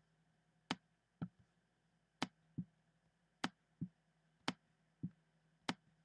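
Faint pairs of short clicks, each a sharp, bright click followed about half a second later by a duller, lower knock, five times over at roughly one pair a second.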